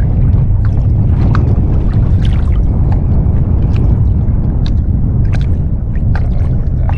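Steady low rumble of wind on the microphone mixed with water sloshing and splashing as a hooked fish is brought in at the surface, with many small scattered ticks and drips.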